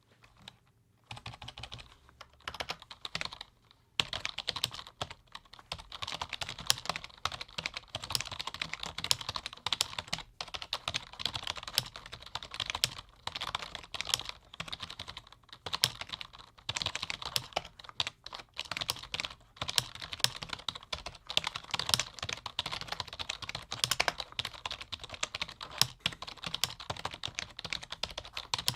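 Typing on a low-noise computer keyboard: a fast, continuous run of key clicks, starting sparsely and with a short pause about four seconds in.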